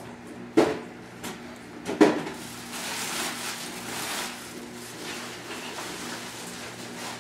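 Two sharp knocks about a second and a half apart, followed by a stretch of rustling, over a steady low hum.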